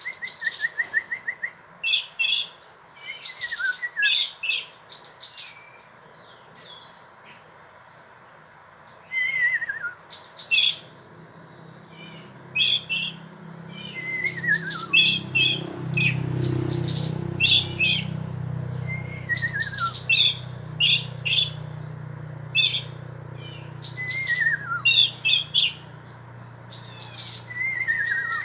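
Small birds chirping in quick, busy bursts, with one bird repeating a short falling whistle about every five seconds. A low hum comes in about halfway through and swells for a few seconds before settling.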